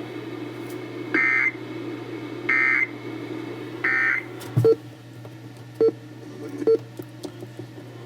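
Three short bursts of EAS end-of-message data tones, the harsh two-tone SAME screech, about a second apart over AM radio, marking the end of the AMBER Alert broadcast. A few sharp clicks with brief blips follow over a steady low hum.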